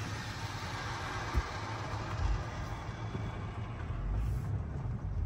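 Low steady rumble of a car heard from inside its cabin as it rolls out of a touch-free car wash bay, with a hiss that fades away over the first few seconds and a single light knock after about a second.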